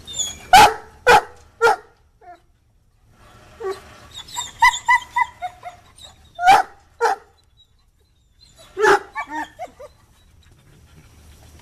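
A dog barking in bouts: three loud barks near the start, a run of quicker, shorter barks midway, two more barks, then a last bark trailing off into a few shorter ones.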